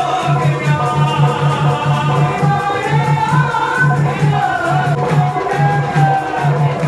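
Hindu devotional song with a lead singer over a steady, quick beat of about three low drum thumps a second, with a rattling shaker.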